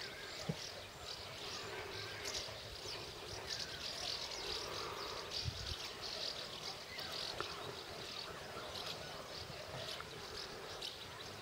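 Outdoor ambience: a dense, steady high-pitched chirring of insects, with many short irregular chirps.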